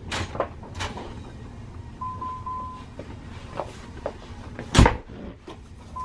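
Metal exit door being opened from outside: a few light clicks, a short double electronic beep, then one loud clunk of the latch releasing as the door swings open, followed by fainter knocks.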